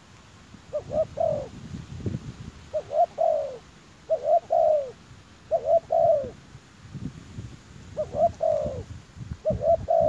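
Spotted dove cooing: a phrase of two short notes followed by a longer falling note, repeated six times at irregular gaps of one to two seconds.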